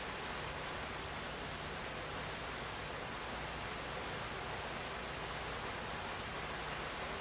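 Heavy rain pouring down as a steady, even hiss.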